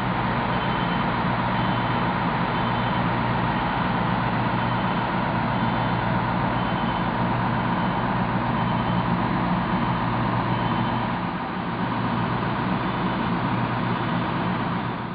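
Fire engine's diesel engine running steadily, driving its pump to feed water through the hose lines.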